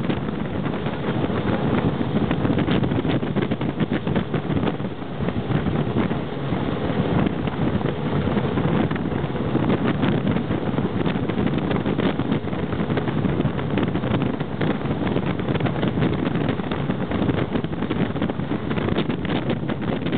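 Speedboat running at high speed upstream, its engine drone mixed with rushing water and wind buffeting the microphone.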